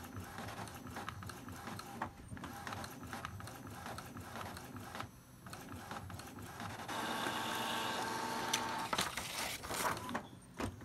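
Epson inkjet printer running a nozzle check print: the print-head mechanism shuttles with irregular clicks and rattles. About seven seconds in, a steadier motor whine lasts around two seconds, then a few more clicks.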